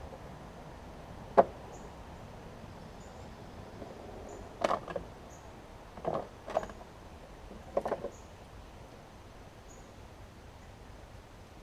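A sharp click, then several short clusters of clattering knocks from the mower's metal handle and its fasteners being worked into place.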